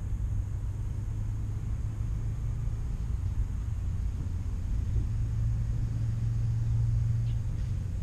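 Low, steady rumble of distant road traffic, swelling a little about five seconds in.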